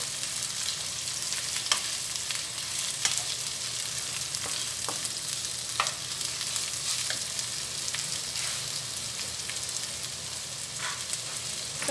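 Julienned carrots and onion sizzling in hot oil in a frying pan, stir-fried with a wooden spatula that scrapes and knocks against the pan now and then.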